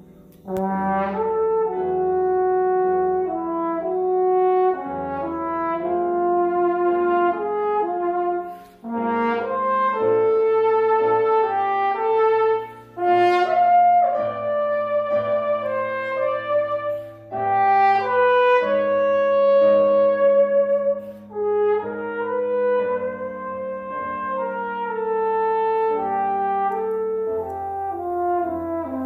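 Trombone playing a melodic solo passage, phrase after phrase with short breaks for breath about 9 and 13 seconds in, over sustained piano accompaniment.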